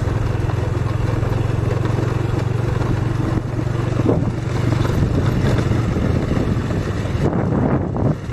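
Motorcycle engine running steadily while being ridden, over a rushing noise of travel.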